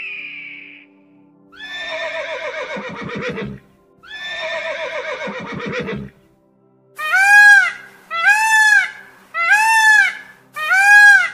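The end of a high bird call, then two horse whinnies of about two seconds each, falling in pitch. From about seven seconds in, a peacock gives five loud calls, roughly one a second.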